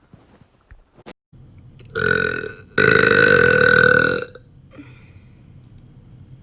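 A woman burping loudly: a short burp about two seconds in, then a longer, louder one held steady for over a second.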